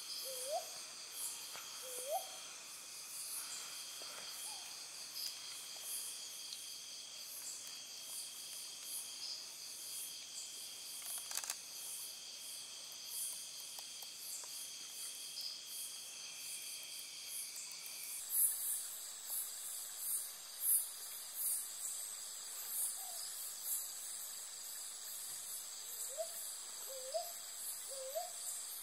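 Brown boobook calling a series of short rising hoots, about one a second, near the start and again in the last few seconds. A steady chorus of crickets and other night insects shrills throughout, and its pattern changes abruptly about two-thirds of the way through.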